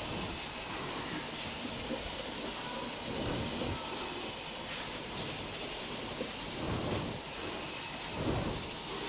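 Steady hiss with hands pressing and rubbing a flour-dough seal around the rim joint of a clay steamer pot set on an aluminium pot. There are a few soft rubbing thuds, the loudest near the end.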